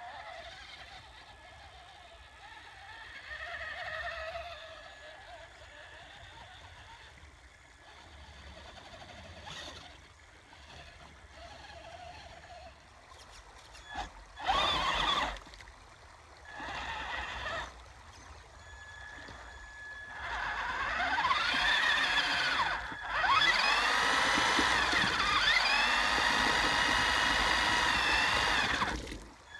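Electric motor of a Traxxas Stampede 4x4 RC monster truck whining. After a quieter stretch it gives two short throttle blips about halfway through, then revs hard for the last nine seconds or so, pitch rising and falling, as its wheels spin in slush and icy creek water.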